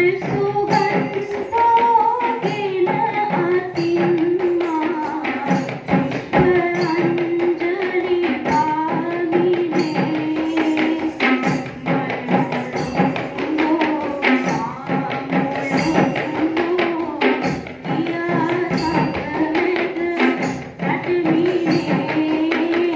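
Kandyan dance drumming: barrel-shaped, double-headed Sri Lankan geta bera drums hand-beaten in quick, dense rhythmic patterns. Above the drums runs a sustained melody line that wavers and ornaments around one pitch.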